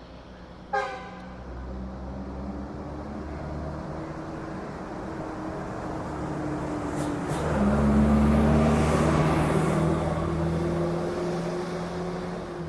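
A short horn-like toot, then a steady vehicle-engine-like drone whose tone slowly rises, loudest around the middle.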